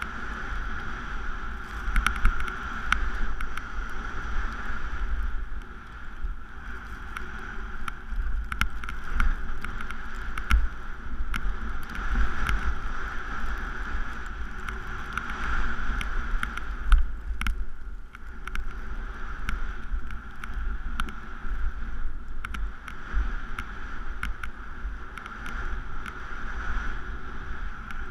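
Skis running through deep powder snow at speed, heard on a head-mounted action camera: a steady rush of wind and snow with a low buffeting rumble and scattered sharp clicks.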